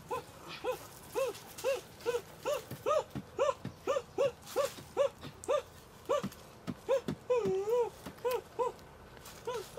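Puppy whimpering in short rising-and-falling cries, about two or three a second, with a few dull knocks from a tool digging into soil.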